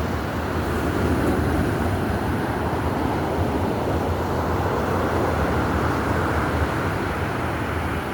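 Stormy sea: waves and surf with wind buffeting the microphone, a steady rush of noise with a heavy low rumble.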